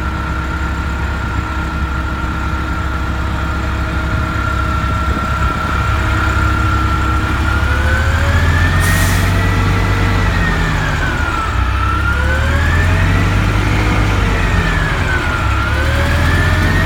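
NABI transit bus running, a steady engine drone under a whine that, from about eight seconds in, rises and falls in pitch in slow waves as the bus changes speed. A short sharp air hiss about nine seconds in is the bus's air-brake 'sneeze'.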